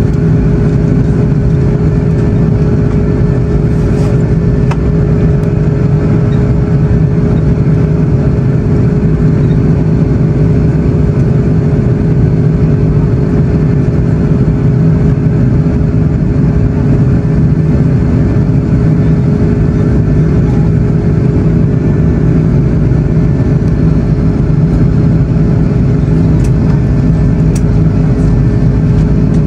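Steady cabin drone of an Airbus A330-300 in the climb, heard from a window seat beside the wing: the turbofan engines and rushing airflow, with a constant low hum under the noise.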